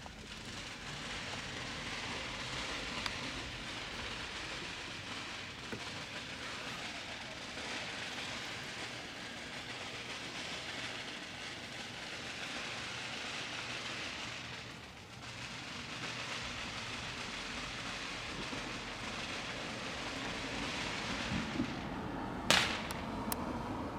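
Fireworks hissing and crackling steadily, with a brief lull a little past the middle and a single sharp bang near the end.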